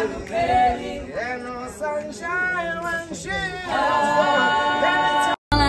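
A small group of men and women singing together, their voices rising and falling, with long held notes near the end; the singing breaks off abruptly about five seconds in.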